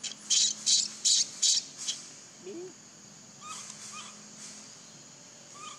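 Bird calls: a quick run of about five harsh, high squawks in the first two seconds, then a few short, soft chirps.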